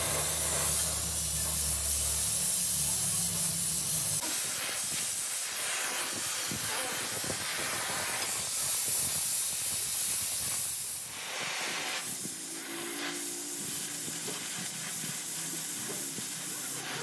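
Gas welding torch flame hissing steadily while it heats and welds a cracked aluminium alloy wheel rim with filler rod. A low hum runs underneath and cuts off suddenly about four seconds in.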